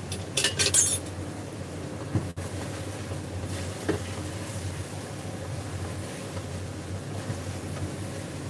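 A quick cluster of clinks from kitchenware handled on the counter about half a second in, with a couple of softer knocks later, over a steady low rumble.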